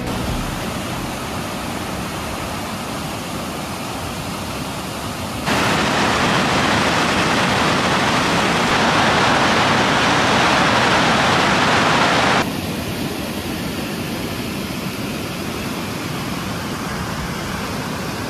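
Rushing mountain stream tumbling over rocks, a steady rush of water. It jumps louder about five seconds in and drops back abruptly about twelve seconds in.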